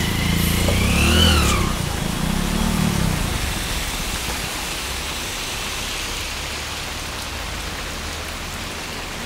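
Heavy rain falling on a road while a loaded lorry drives past, its engine rumble fading out over the first three seconds, with a brief rising-and-falling whine about a second in. Then steady rain.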